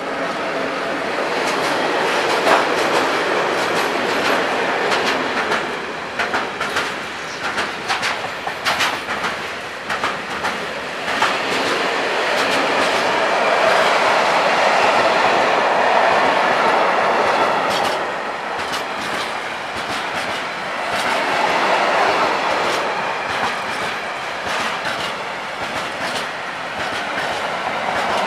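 Freight train of tank wagons hauled by a Škoda 31E electric locomotive passing close at speed: a steady rush and rumble of steel wheels on the rails, growing louder at the start as the locomotive draws level, with spells of sharp clicks from the wheels in the first half.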